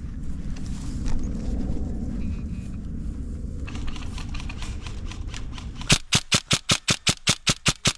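Low rustling and handling noise for about six seconds, then an airsoft electric rifle fires a rapid string of about a dozen shots, some six or seven a second.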